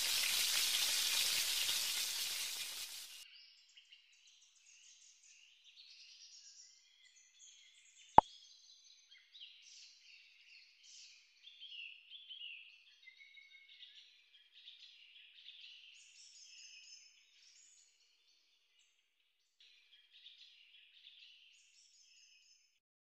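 Oil sizzling around gram-flour-battered cauliflower pakoras deep-frying in a pan, fading out about three seconds in. Then faint bird chirping comes and goes, with one sharp click about eight seconds in.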